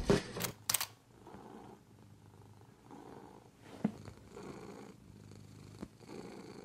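House cat purring softly, the purr swelling and fading with each breath about every second and a half. A couple of sharp clicks sound in the first second.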